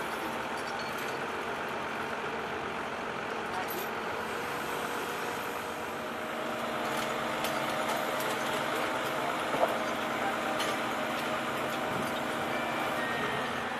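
Steady running noise of heavy construction machinery, with a single sharp click about ten seconds in.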